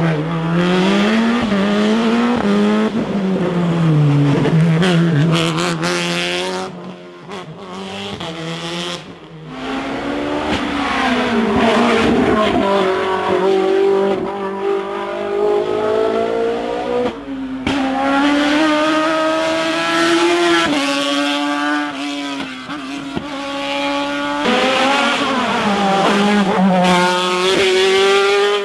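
Hill-climb race car engines at hard throttle, revving up and dropping in pitch over and over as the drivers shift gears through the bends. Several cars follow one another with sudden breaks between them.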